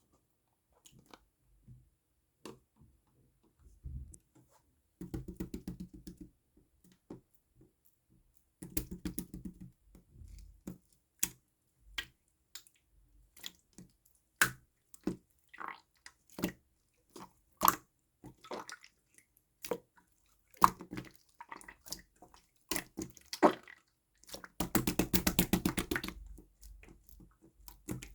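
Clear slime being squished and poked by hand, giving wet clicking pops. These come one at a time, with a few stretches of rapid squelching, the longest near the end.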